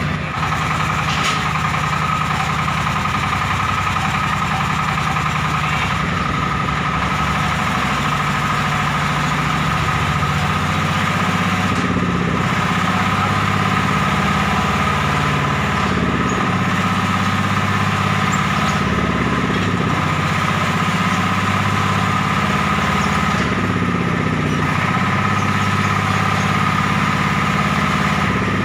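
Diesel engine of a homemade 'ledok' dump truck running steadily, its pitch wavering slightly, while the tipper bed lifts to dump a load of soil. A steady high whine runs above the engine.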